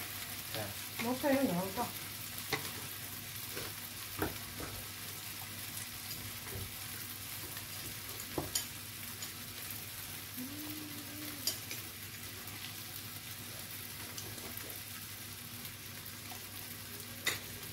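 Meat sizzling on a tabletop Korean barbecue grill pan, a steady hiss, with a few sharp clicks of utensils against dishes.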